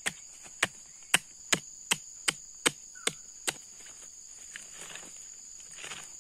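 Small pick mattock chopping into packed clay soil, about nine sharp blows at roughly two to three a second, breaking up the ground. The blows stop about three and a half seconds in, followed by a softer scraping as the loosened dirt is worked.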